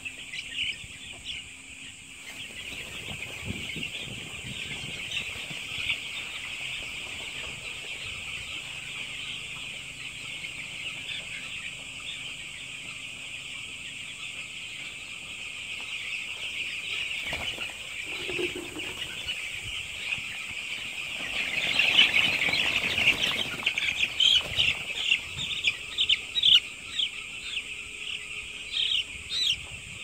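A shed full of young chicks peeping, many short high cheeps overlapping into a steady chorus. It swells louder about two-thirds of the way through, and separate loud peeps stand out near the end.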